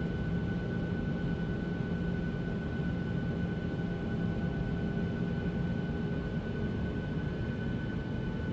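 Airliner cabin in cruise flight: a steady low rumble of engine and airflow noise, with a faint steady hum of tones on top.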